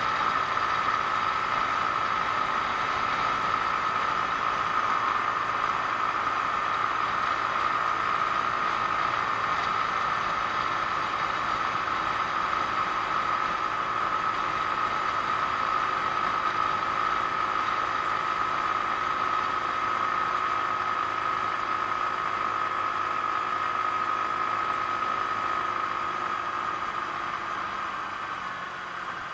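Genuine Buddy 125 scooter's single-cylinder four-stroke engine running steadily at cruising speed over a steady hiss of wind and road. The engine note quietens a little near the end.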